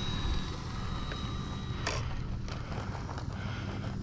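Electric motor and propeller of an RC trainer plane sitting on the ground, giving a high whine that dies away in the first half second. After that, wind rumbles on the microphone, with one sharp click about two seconds in.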